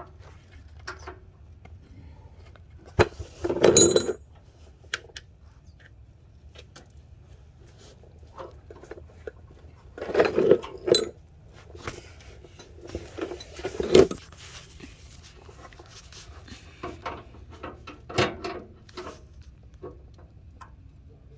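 Metal hand tools clinking and rattling, with scattered sharp clicks and a few louder bursts of clatter, as a wrench works on the bolts of a bracket under the car.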